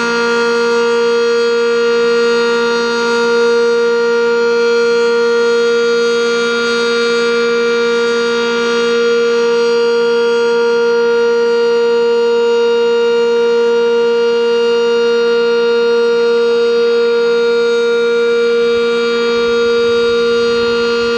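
Sentry 10V outdoor warning siren sounding its steady alert signal. It holds one unchanging pitch while the loudness swells and fades gently every few seconds.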